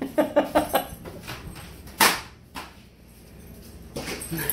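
A dog's claws clicking quickly on a tile floor as it runs off. About two seconds in there is one sharp slap, with a smaller one just after, as the pet-door flap swings shut behind it.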